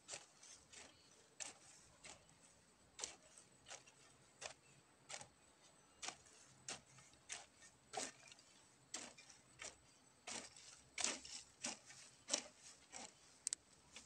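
A long-handled hand hoe chops into red clay soil and weeds in a steady working rhythm, a short strike about every half to three-quarters of a second.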